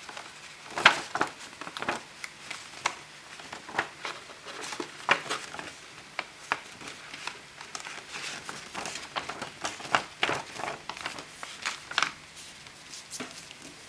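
Paper rustling and crinkling as a printed paper template is folded and creased by hand, with scattered crisp ticks and scrapes as the sheet is pressed flat.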